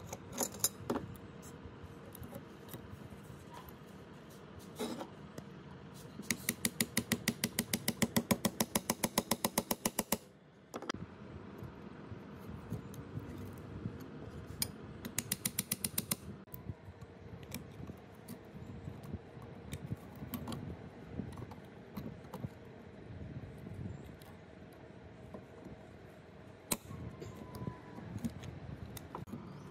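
Metal-on-metal tapping as a punch sets a rivet pin in a hacksaw frame's hinged end over a steel block. A fast, even run of sharp taps lasts about four seconds, a shorter run comes about halfway through, and single clicks fall between.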